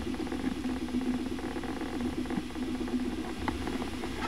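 Small sailboat's engine running steadily, a constant low hum with a light rattle.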